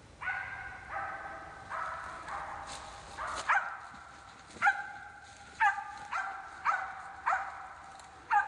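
A squirrel dog barking steadily, about a dozen barks at roughly one a second. The first few are longer and drawn out; the later ones are sharper, each snapping down in pitch and then holding. It is the steady bark of a dog that has treed a squirrel.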